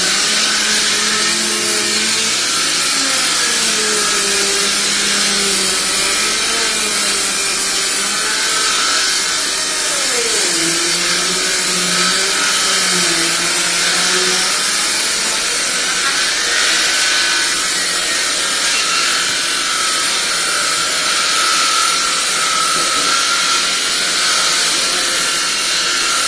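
Electric power tool running steadily as it works wood, a continuous loud whirring noise with no breaks.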